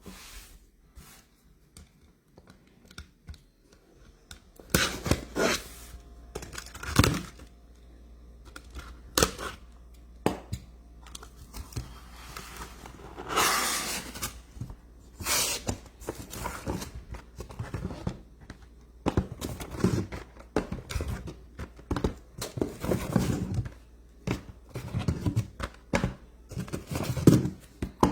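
Cardboard and plastic packaging being torn open and crinkled, with knocks and thunks, as a sealed case of trading-card boxes is opened. The sounds come in irregular bursts, with a longer tearing stretch about halfway through.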